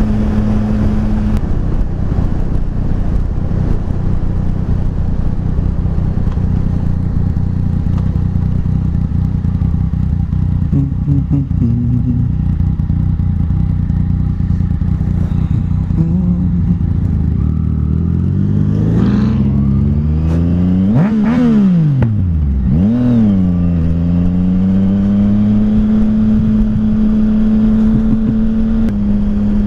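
Yamaha FZ-09 motorcycle's inline-three engine running at a steady speed while riding, then its pitch climbs and drops sharply twice as the throttle is worked and gears change, before settling into a steady note again.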